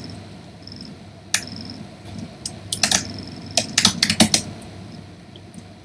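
Computer keyboard being typed on: one keystroke, then short runs of quick key clicks about two and a half to four and a half seconds in, as the word "notepad" is typed into a Windows Run box.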